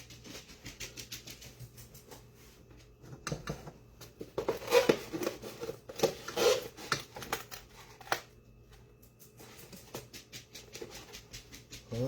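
Light clicking, scraping and rustling of small things being handled, with a few louder clatters in the middle.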